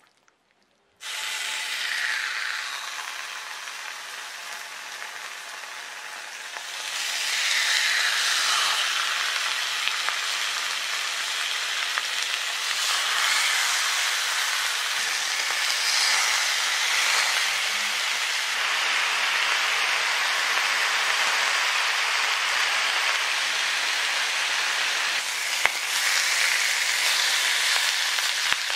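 Marinated pork ribs sizzling in oil in a hot frying pan. The sizzle starts suddenly about a second in, grows louder about seven seconds in, then holds steady.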